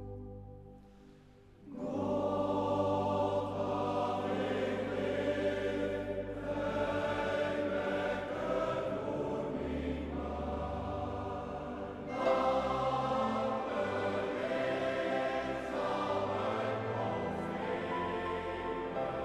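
A held organ chord fading out, then a men's choir singing a hymn from about two seconds in.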